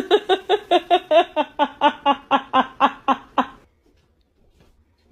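A person laughing in a long run of even, pitched 'ha-ha' pulses, about four a second, that stops sharply about three and a half seconds in.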